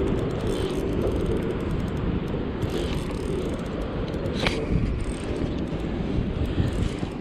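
Wind buffeting the microphone in a steady rumbling rush, with one sharp click about four and a half seconds in.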